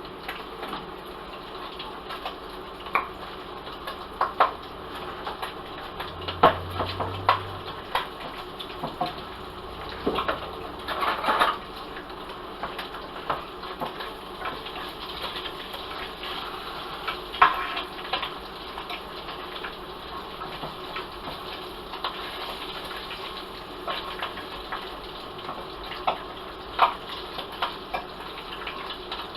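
Cabbage and bacon frying in a pan: a steady sizzling hiss with scattered sharp pops and knocks.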